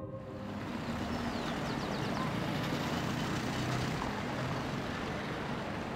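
Street ambience of city traffic: a steady wash of cars moving round a square, with a few faint high chirps about a second and a half in.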